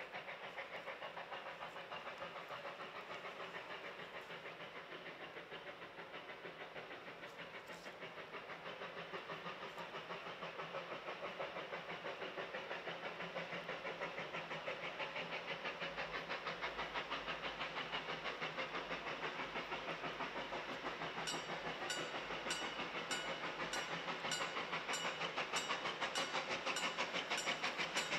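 Level crossing bell ringing rapidly and steadily, growing louder as steam locomotive 12A approaches. In the last third a sharper beat at about two a second joins in, the locomotive's exhaust as it nears.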